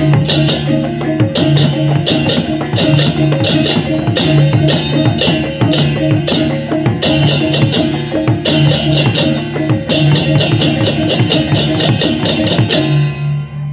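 Balinese baleganjur gamelan playing: rows of cengceng kopyak hand cymbals clashing in fast, even patterns over kendang drums and a steady low gong tone. The piece stops near the end and the gongs ring on.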